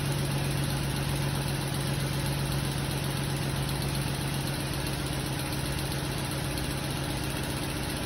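2008 Chrysler Sebring's 2.7-litre V6 idling steadily with a misfire on cylinder one.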